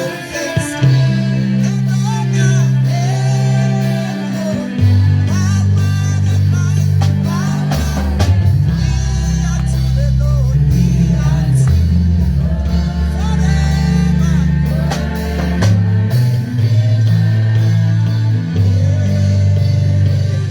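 Church worship band playing, with bass, keys and drums under singing voices.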